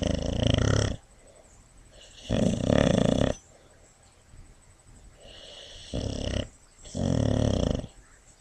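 Boxer dog snoring in her sleep: four loud snores with each breath, about two seconds apart.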